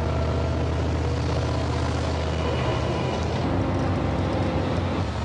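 Heavy military truck's diesel engine running as it drives, with a low steady note that changes about halfway through.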